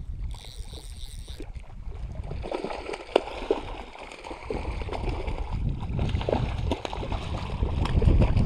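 Hooked tiger trout thrashing and splashing at the surface of shallow lake water as it is played in toward the net. The splashes come in scattered bursts, starting about two and a half seconds in and loudest near the end.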